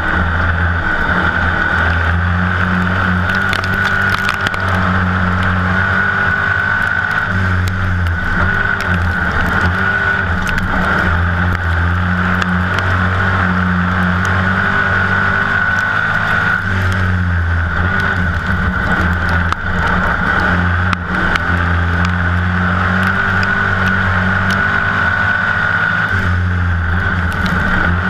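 A dirt-track stock car's V8 engine at racing speed, heard from inside the cockpit. The engine note holds steady for stretches and turns rough and uneven in between, several times over, with scattered short clicks and rattles.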